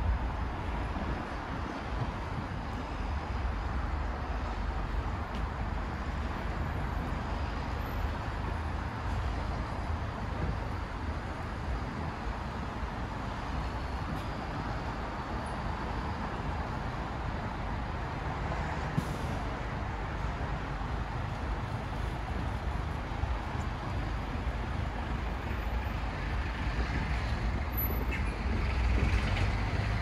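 Steady street traffic noise: a low rumble of passing road vehicles, growing louder near the end.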